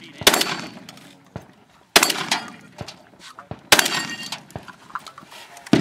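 Gunshots fired at a steel spinner target: three sharp shots about one and three-quarter seconds apart, with lighter clangs of steel plates being hit between them, and another loud bang right at the end.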